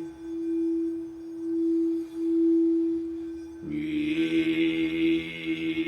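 Quartz crystal singing bowl ringing as one steady, pulsing tone. About two-thirds of the way in, a voice joins in a low drone about an octave below the bowl, with a bright whistling overtone above it: Mongolian-style overtone singing matched to the bowl's pitch.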